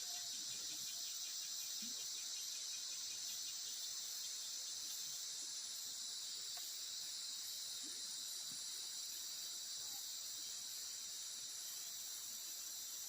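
Steady, high-pitched chorus of forest insects, crickets or cicadas, droning on without a break.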